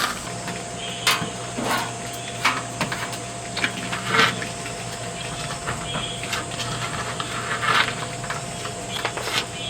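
Ice cream being eaten: scattered small clicks, taps and smacks at irregular intervals, over a steady hiss and a low steady hum.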